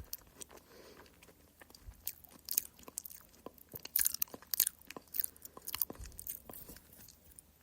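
A person eating a banana close to the microphone: soft bites and wet, sticky chewing smacks in an irregular run, busiest from about two seconds in, quieter at the start and fading near the end.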